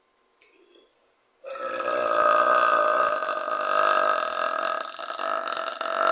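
A woman's belch, one long drawn-out burp starting about a second and a half in and held at a steady pitch.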